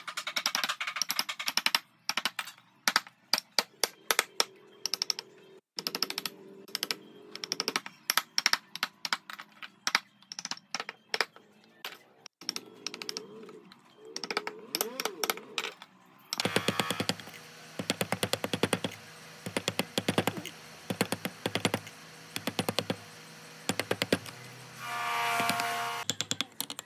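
Hand carving tools working wood: a long run of sharp, irregular taps and clicks that grow faster and denser about two-thirds of the way in. Near the end a brief pitched whine, like a small power tool, sounds for about a second.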